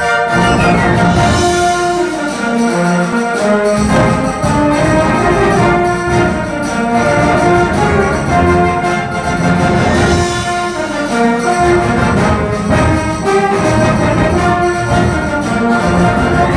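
Symphonic band playing live: woodwinds and brass sounding sustained chords together over low instruments, with the low parts resting briefly twice.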